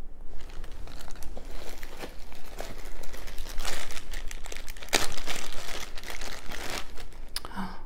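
Plastic bags crinkling and rustling as hands rummage through a box of bagged necklaces, with louder handfuls a little before the middle and again about two-thirds of the way in.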